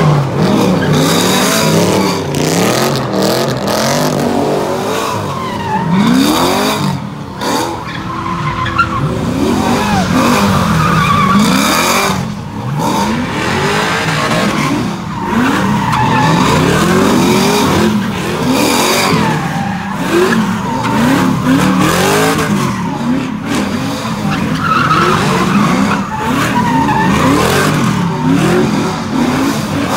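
Car engine revving hard up and down, over and over, while its tyres skid and squeal in a burnout.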